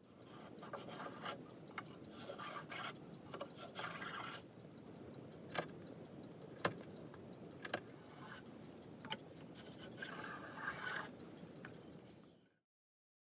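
Hand tools cutting an oak moulding: repeated rasping, scraping strokes on the wood, with a few sharp clicks in the middle.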